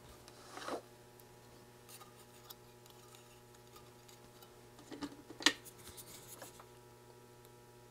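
Light handling noises of work on small wiring and parts: a soft rustle about a second in, then a cluster of small clicks and taps around the middle, one sharp click the loudest, over a faint steady electrical hum.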